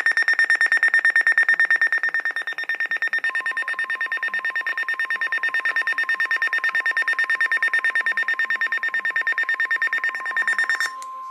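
Emergency Alert System tones on a TV broadcast: a loud, rapidly pulsing alarm beep, joined about three seconds in by a steady lower alert tone. The pulsing cuts off near the end while the steady tone carries on. The tones signal an emergency alert, here a National Weather Service severe thunderstorm warning.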